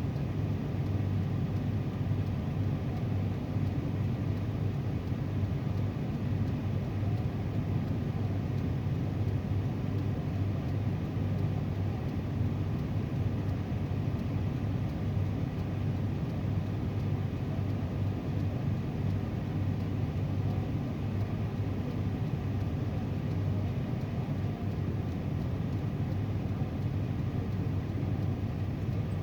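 Steady low rumble inside a car with its engine running, unchanging throughout.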